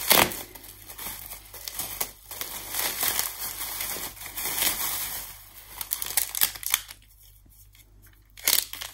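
Bubble wrap and clear plastic packaging crinkling as it is handled and opened, loudest right at the start. The crinkling dies down about seven seconds in, then picks up again near the end.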